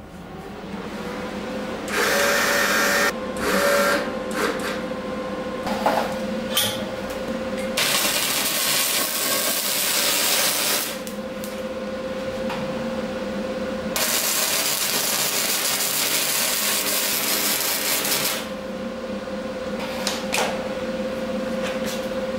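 Wire-feed MIG welder welding steel square tubing into a frame: several bursts of steady crackling arc sizzle, the longest about three to four seconds, with short pauses between beads, over a steady hum.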